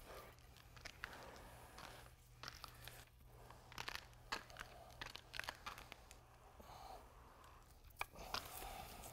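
Faint, irregular crunching and scraping of a flat squeegee pushing polyaspartic top coat over a gritty quartz-aggregate floor, mixed with spiked shoes stepping on it.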